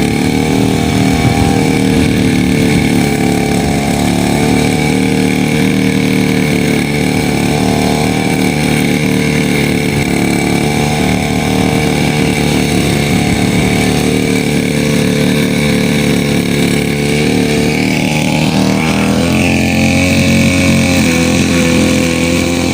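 Grass cutter's small engine running steadily at a constant speed, with a slight shift in its pitch about nineteen seconds in.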